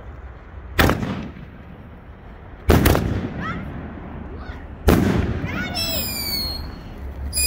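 Consumer firework artillery shells going off: three sharp booms about two seconds apart, each fading away, then high whistling near the end.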